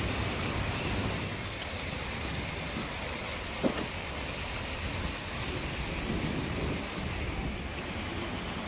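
Open-air water park ambience: a steady rushing hiss like splashing water, with wind rumbling on the microphone. One sharp click comes a little over three and a half seconds in.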